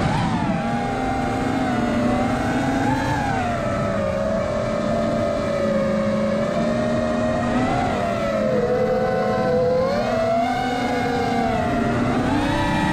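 FPV quadcopter's electric motors whining in flight. The pitch rises and falls every few seconds with the throttle.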